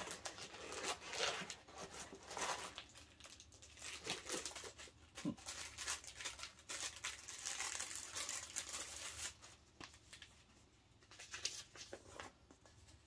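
Paper and plastic packing rustling and crinkling in irregular bursts as a parcel is unpacked by hand, with a short lull near the end.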